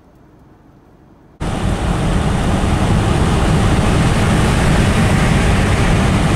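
A faint steady hiss, then about a second and a half in a sudden switch to loud, steady road noise inside a moving vehicle's cabin: engine and tyres running on a snow-covered road.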